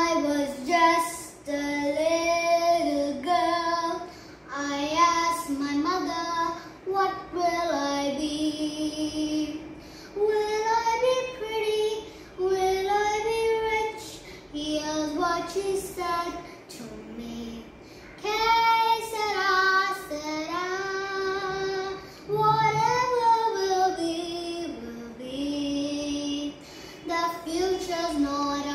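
A young girl singing a song solo, phrase after phrase, holding and bending notes, with short pauses for breath between phrases.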